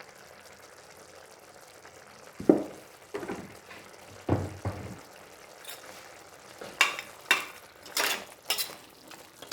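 Curry being stirred in a pot with a spoon over a faint sizzle: a few dull knocks, then from about halfway a run of sharp clinks of the spoon against the vessel.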